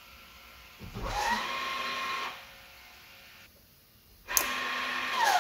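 Electric parking brake caliper motor whirring twice, once in each direction as the brake is applied and released. The first run is about a second and a half long and rises to a steady whine. The second starts with a click and drops in pitch as it winds down.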